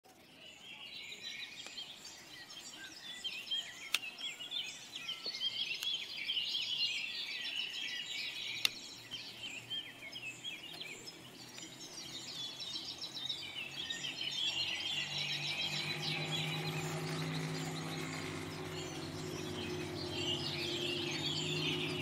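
Many small birds chirping and twittering in a steady, busy chorus. A low, steady hum joins about two-thirds of the way in and continues under the birdsong.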